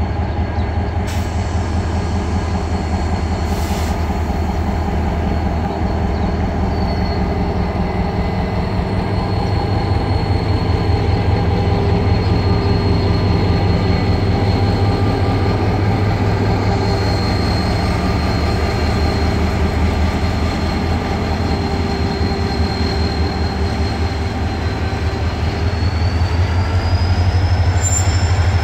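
Pakistan Railways HGMU-30R diesel-electric locomotive running as it moves slowly past: a steady low engine rumble, with a thin high whine above it that rises in pitch near the end.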